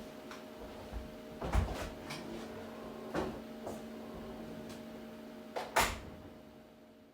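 A handful of short knocks and thumps over a steady low hum, the two loudest about one and a half seconds and about six seconds in; the whole fades out near the end.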